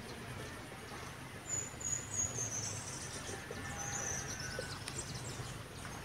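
Wild birds singing outdoors: high, thin chirping notes that run from about a second and a half in to near five seconds, over a steady low background hum.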